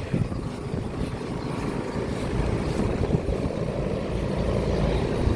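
2021 American Standard Silver Series 3.5-ton central air conditioner's outdoor unit running steadily, a low even rush of air with the Alliance scroll compressor barely heard under it.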